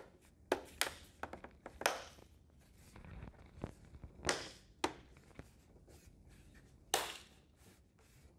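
Plastic latches of an all-in-one PC's front speaker cover snapping into place as it is pressed onto the bezel: a scattered series of sharp clicks, the strongest about seven seconds in.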